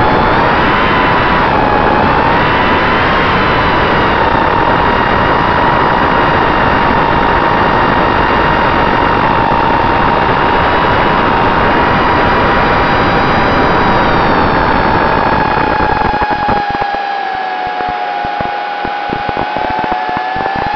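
Small FPV quadcopter's electric motors and propellers whining steadily, with rushing air, as picked up by the onboard camera. About three-quarters of the way through the throttle eases: the pitch sags slightly and the low rumble drops away, then the whine climbs again near the end.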